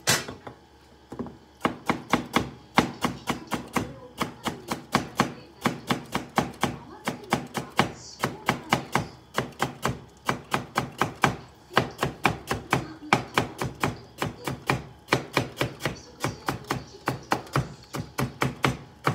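Kitchen knife chopping cucumber on a cutting board: an even run of crisp knocks, about three to four a second, as sliced cucumber is cut into thin strips. A metal tray clatters down once at the very start.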